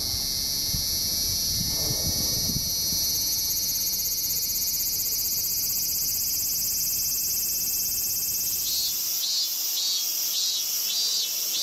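Japanese cicadas (semi) singing: a steady, high-pitched buzz. About nine seconds in it changes to an even pulsing song of roughly two pulses a second.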